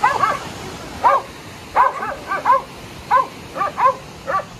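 A dog barking in quick, short, high yaps, about a dozen in uneven runs.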